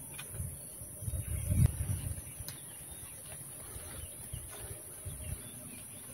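Wind buffeting the microphone high in a coconut palm, with light rustling and a knock about one and a half seconds in as a hand brushes dry flower debris off the palm's frond base.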